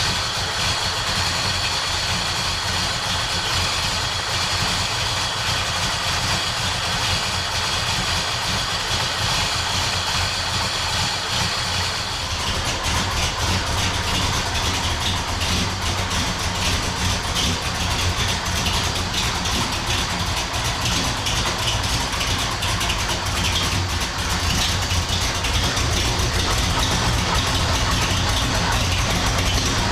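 1967 Buick Special's engine idling on its Holley Terminator EFI while warming up after a cold start. About twelve seconds in the sound becomes fuller and slightly louder.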